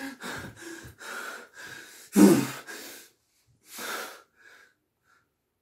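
A man breathing hard and heavily after shouting: a string of short breaths, a louder gasping one about two seconds in and another about four seconds in.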